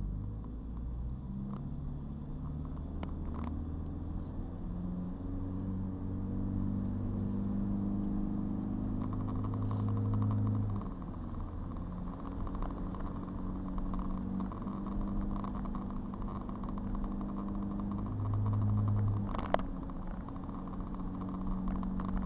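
Car engine running while driving, its note stepping up and down in pitch as the car speeds up and slows, with road noise. A single sharp click comes near the end.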